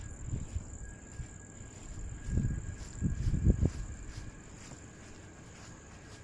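Crickets chirping steadily, a continuous high trill with faint pulses about three times a second. A few low rumbling bumps, the loudest sounds, come about two to four seconds in.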